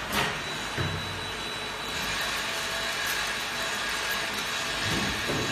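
Automatic bottle capping machine and its conveyor running: a steady mechanical hum and hiss, with a sharp click at the start and a low knock about a second in. About two seconds in, a thin steady whine and more hiss join in.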